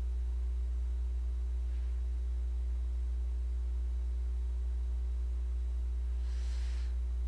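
Steady low electrical hum with a few faint steady higher tones, and a short breath hiss near the end.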